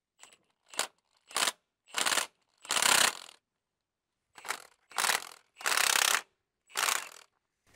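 Impact wrench fired in about nine short bursts of hammering on a transmission bell housing bolt, the longest bursts about half a second; the bolt breaks off.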